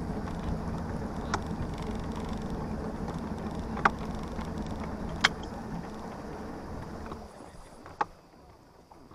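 A boat motor running steadily as the boat moves slowly toward shore, then shutting off about seven seconds in. A few sharp clicks or knocks sound over it.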